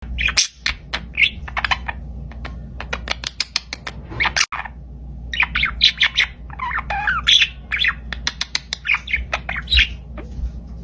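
Pet parakeet chattering in a rapid run of short squawks and chirps, with a few wavering warbles in the middle.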